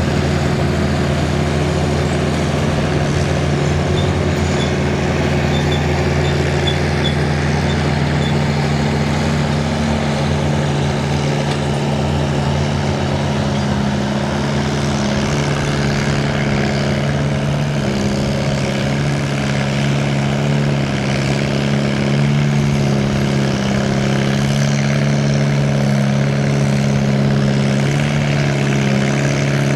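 Small classic farm tractor pulling a weight-transfer sled at a slow crawl, its engine running steadily under load with an even low hum that does not change.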